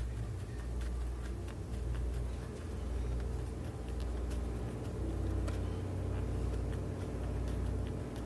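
A steady low mechanical hum, swelling and easing slightly every second or so, with a few faint small clicks over it.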